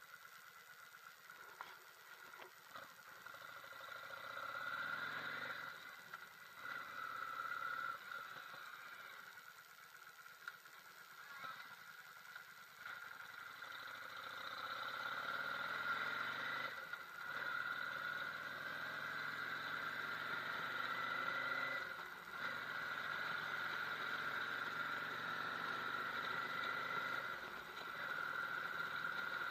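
Yamaha V Star 650's V-twin engine on the move, rising in pitch as the bike accelerates, with several brief dips as it shifts gear, over a steady high whine and hiss.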